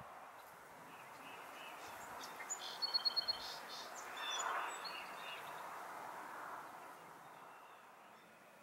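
A small bird gives a quick run of about six high chirps about three seconds in, over a faint steady outdoor hiss that swells briefly a little later.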